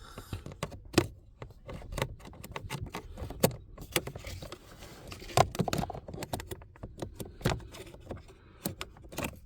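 Irregular plastic clicks, taps and rattles of a cabin air filter and its plastic housing parts being handled and pushed back into place, with a few sharper knocks.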